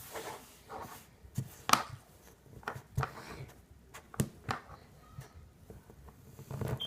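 Plastic pretzel-shaped mold being pressed and tapped into kinetic sand: irregular knocks and short scrapes, the loudest a little under two seconds in.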